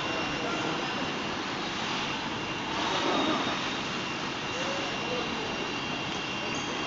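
Steady machinery noise of a refrigerator assembly plant's floor, with powered roller conveyors carrying fridges, and a thin steady high whine. It swells slightly about three seconds in.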